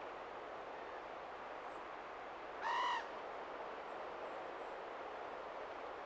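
A bird gives one short, clear arching call with rich overtones about three seconds in, over a steady hiss of outdoor background noise. A few faint, high chirps come here and there.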